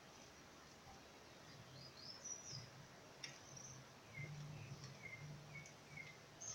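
Near silence: faint room tone with a low hum and a few faint, short high chirps.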